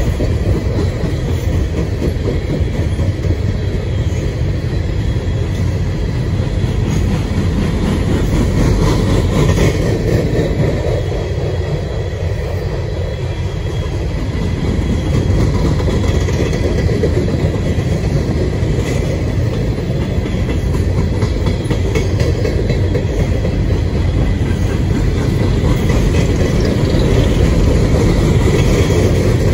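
Freight train's cars rolling past, loud and steady, their wheels clicking and clattering over the rails.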